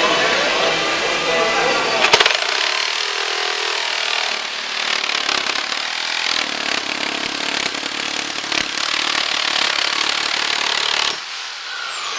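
Corded reciprocating saw with a Bosch Daredevil demolition blade starting with a sharp crack about two seconds in, then cutting steadily for about nine seconds through layered wood, embedded nails, metal flashing and asphalt shingles. Near the end the cut stops and the motor winds down with a falling whine.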